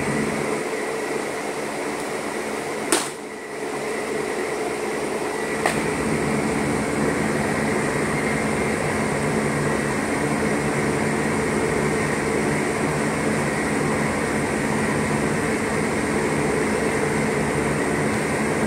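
Steady hum of ventilation or air-conditioning fans in a large metal building, carrying a few fixed tones. A sharp pop about three seconds in and a fainter click near six seconds.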